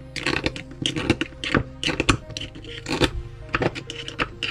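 Irregular sharp metallic clicks and clinks of steel gearbox parts and tools being handled while a 125 cc pit bike engine's gearbox is dismantled, over background music.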